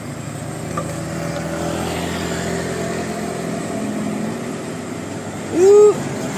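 Bus engine running on the road, with one short, loud horn blast near the end whose pitch rises and then falls.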